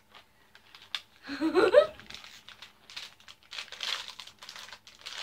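Packaging crinkling as a small stocking gift is handled and unwrapped, in a dense crackle that gets going about three seconds in. A short, loud burst of a child's voice, without words, comes about a second and a half in.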